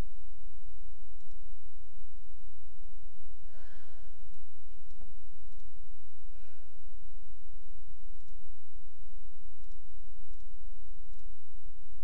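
Computer mouse clicking about eight times at irregular intervals, over a steady low hum. Two breathy sighs come about three and a half and six and a half seconds in.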